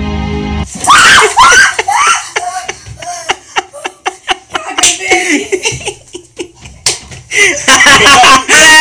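Background music cuts off less than a second in. A woman frightened by a rubber toy snake then cries out, and loud laughter follows in quick bursts, rising again to loud shrieking near the end.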